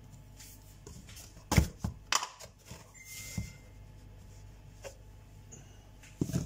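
Hands punching down risen bread dough in a glass bowl on a stone counter to knock the air out. There are sharp knocks and thuds about a second and a half to two seconds in, and another pair of knocks near the end, with quiet handling between.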